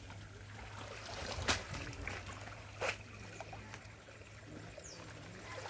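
Faint splashing and sloshing of shallow muddy water as someone works in it by hand, with two sharper slaps about a second and a half and three seconds in, over a low steady hum.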